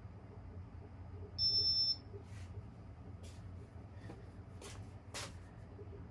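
Casablanca ceiling fan humming steadily low while its control gives a single high-pitched beep lasting about half a second, followed by a few soft clicks.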